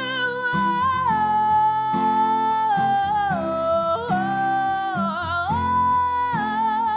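Song with acoustic guitar accompaniment and a melody of long held notes that slide between pitches, with no words sung.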